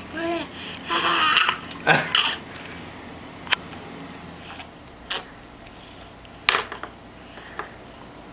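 Baby babbling in short voiced sounds over the first two seconds or so, then a few scattered sharp clicks.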